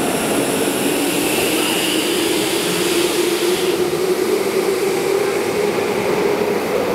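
Tokyo Metro subway train pulling out of an underground station, its motor hum slowly rising in pitch as it picks up speed over steady rumbling running noise. A high hiss stops about halfway through.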